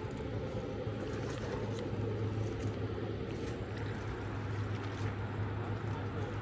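A steady low hum with a constant drone underneath and a few faint ticks.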